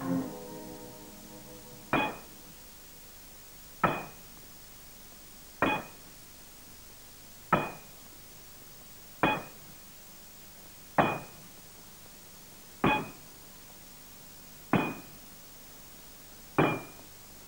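Hammer blows on metal, nine slow strokes about one every two seconds, each a sharp strike with a short metallic ring.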